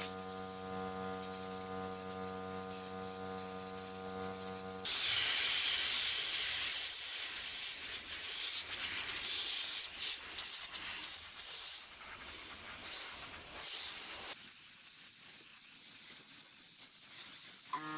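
A steady electric hum made of several even tones, then, about five seconds in, a loud spray hiss that starts suddenly and pulses unevenly for about nine seconds before dropping to a softer hiss.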